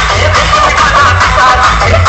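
Loud music with a heavy, repeating bass beat and a wavering melody over it, played through a large DJ sound system.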